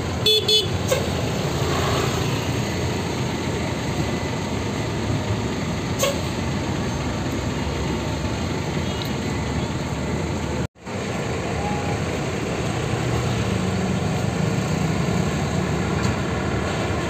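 Large coach bus's diesel engine running with a steady low rumble as the bus pulls slowly past. There is a brief high-pitched sound just after the start, and the audio cuts out for an instant about eleven seconds in.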